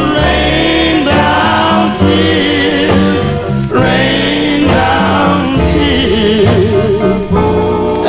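1959 R&B record: a vocal group singing over a band with a steady bass line.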